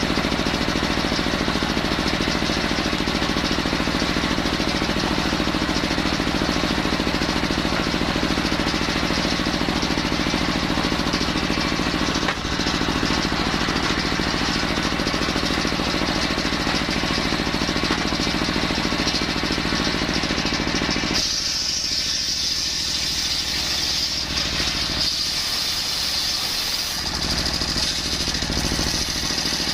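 Engine-driven circular saw running steadily while cutting coconut-palm wood. About 21 seconds in, the sound changes abruptly: the low engine note drops away and a high hiss takes over.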